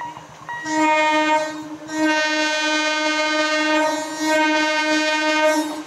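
Horn of an approaching EMU electric local train sounding at one steady pitch: a blast of about a second, then a long blast of about four seconds.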